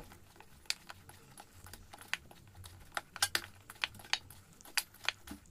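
Hands kneading soft, oiled wheat-flour dough in an aluminium bowl: faint, irregular clicks and pats as the dough is pressed and turned against the metal.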